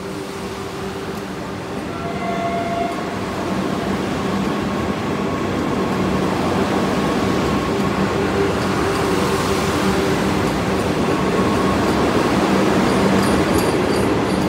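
White Vande Bharat Express electric trainset rolling slowly past on the adjacent track: a steady rumble of wheels on rail with a low steady hum, growing louder over the first several seconds and then holding.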